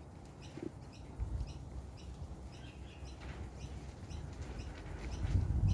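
A small bird chirping over and over in short, quick calls, two to three a second, with a low rumble underneath.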